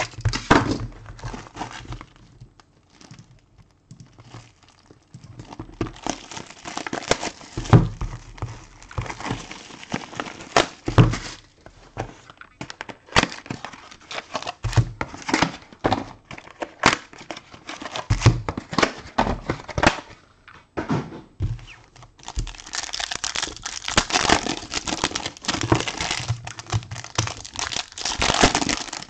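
Plastic wrap and foil card-pack wrappers being crinkled and torn, with light knocks and clicks from handling a cardboard trading-card box. Near the end, a long stretch of constant crinkling as a pack is worked open.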